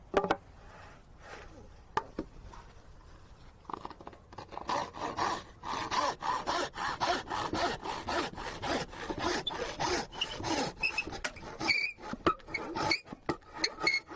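Hand saw cutting into wood in quick, even back-and-forth strokes, starting about four seconds in, after a couple of sharp knocks.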